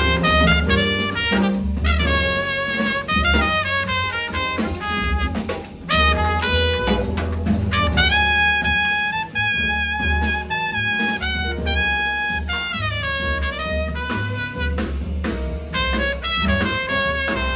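Small jazz band playing live: a trumpet carries a quick, running melodic line over piano, upright bass and drum kit.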